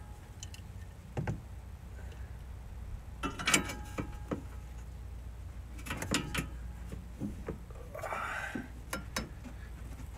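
Scattered metal clinks and knocks of a wrench and a pin bar being fitted onto a clutch fan's nut and pulley, in small clusters, with a brief scrape about 8 seconds in.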